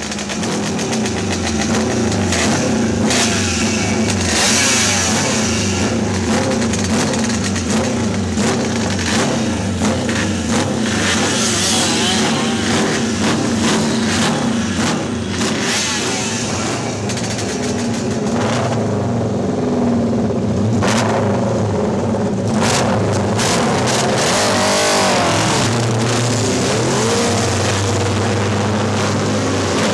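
Classic racing motorcycle engines running and revving, their pitch rising and falling again and again as the throttle is opened and closed.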